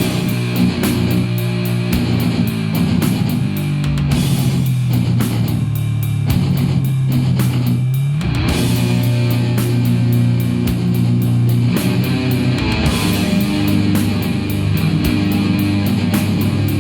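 Instrumental death metal from a cassette recording: distorted guitars and bass playing held low riffs that shift every few seconds, over fast, rapid drumming.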